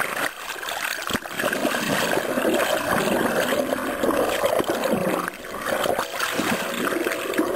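Water splashing and gurgling close to the camera's microphone as it moves between air and sea, with a sharp knock about a second in.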